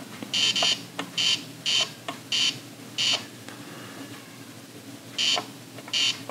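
Ohio Art Etch A Sketch Animator giving off short electronic hissy 'chh' bursts as its drawing knobs are turned, each burst well under half a second, about seven in all, irregularly spaced, with a pause of about two seconds in the middle. The sound is monotonous.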